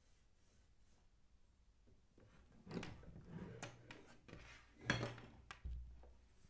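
Handling noises: a series of light clicks, knocks and rubbing, starting about two and a half seconds in, with the sharpest knock about five seconds in.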